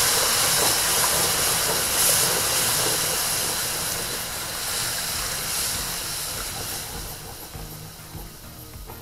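Broth hissing and steaming as it is poured into a hot butter-and-flour roux in a frying pan to deglaze it, stirred with a wooden spoon. The hiss is loud at first and dies away steadily over several seconds.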